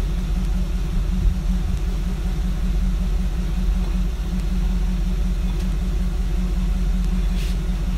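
1955 Chevy pickup's engine idling with a steady, low rumble.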